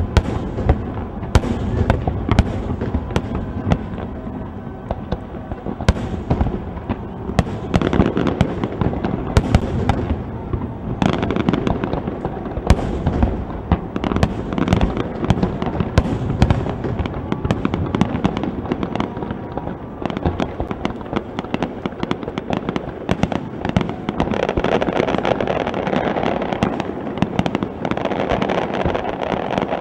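Aerial fireworks bursting in quick succession: sharp bangs one after another over a continuous crackle of many small pops. The crackle grows denser and louder near the end.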